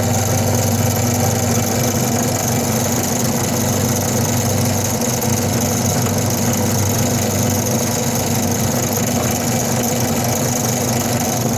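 A woodworking power tool's electric motor running loud and steady, with a constant hum.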